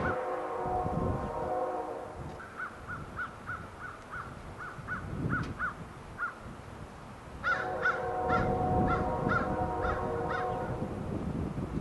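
Horn of an approaching freight train's lead locomotive, a Nathan K5HL five-chime, sounding two long blasts: one at the start lasting about two seconds, and one from about seven and a half seconds to nearly eleven. A bird calls in short, evenly spaced notes, about two a second, between the blasts and over the second one.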